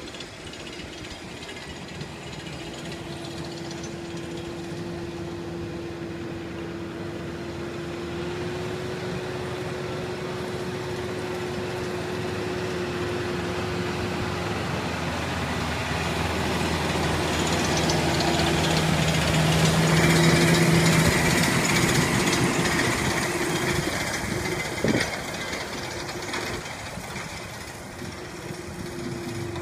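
John Deere utility tractor pulling a sprig planter, its engine running steadily under load and growing louder as it comes close and passes, then easing off a little. A single sharp knock near the end.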